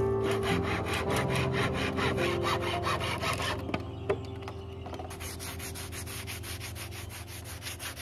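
Handsaw cutting through a thin, dry tree branch in rapid back-and-forth strokes, with a single knock about four seconds in as the cut ends. Fainter rubbing strokes follow.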